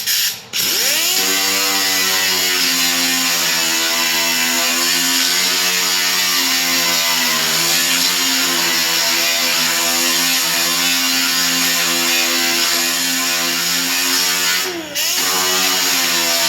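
Electric grinder spinning up and grinding a filled weld flush on sheet-metal bodywork, running steadily with a wide hiss over its motor whine. Near the end it briefly slows and then picks back up.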